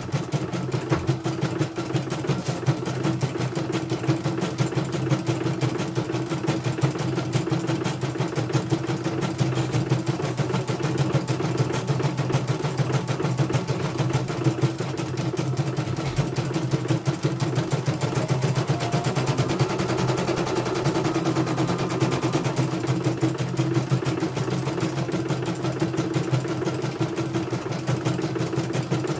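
Elyana computerized embroidery machine stitching a design steadily: rapid, even needle strokes over the steady hum of its motor.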